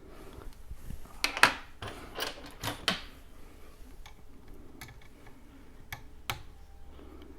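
Small hard tools or driver bits being handled and sorted through, clicking and clattering. There is a cluster of clatter about a second to three seconds in, then a few single clicks.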